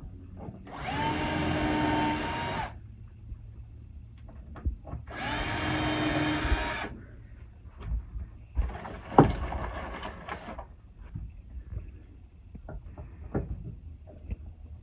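Cordless drill driving hinge screws into a cabinet: two runs of about two seconds each, each a steady whine. Then a clatter with one sharp knock, and light knocks as the door and hinge are handled.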